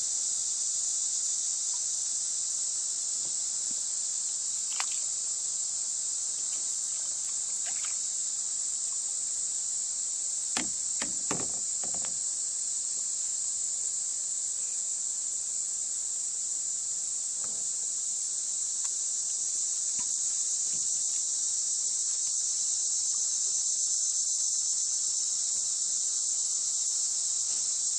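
A chorus of insects making a steady, unbroken high-pitched buzz, with a few faint clicks and knocks around the middle.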